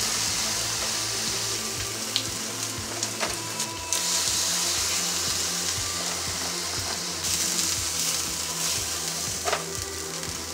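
Chicken breast halves sizzling as they fry in olive oil in a nonstick skillet, the hiss swelling and easing, with a few light clicks of tongs as the pieces are lifted out.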